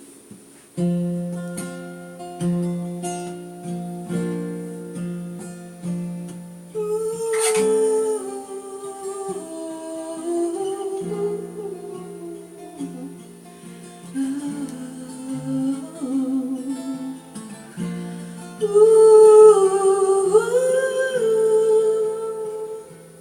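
Acoustic guitar picking a slow song intro. A wordless hummed melody line comes in over it about seven seconds in and rises near the end.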